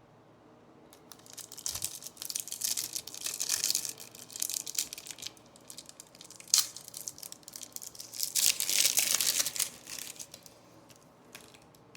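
Crinkling and rustling of a foil trading-card pack wrapper being handled, in irregular bursts, with one sharp snap about six and a half seconds in.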